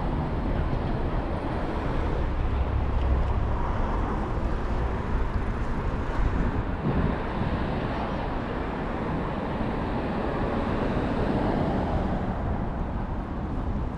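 City street traffic noise: vehicles running past, with a heavier low rumble a few seconds in.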